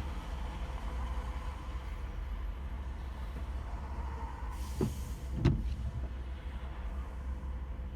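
Car cabin road and engine rumble while driving slowly in traffic, with two short thumps about half a second apart just past the middle, the second louder.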